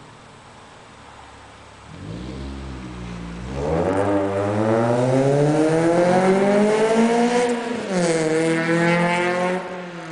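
Honda Prelude's H22 four-cylinder engine accelerating hard, starting about two seconds in: the pitch climbs for several seconds, dips briefly near eight seconds at a gear change, then climbs again before falling away near the end.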